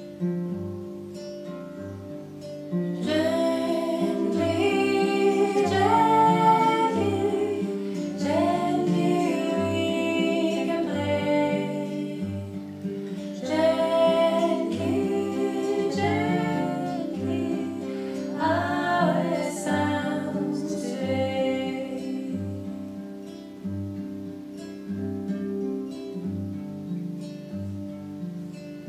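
A nylon-string classical guitar played in a steady pattern with regular bass notes, and a woman singing gently over it from about three seconds in. The voice stops a few seconds before the end, leaving the guitar alone.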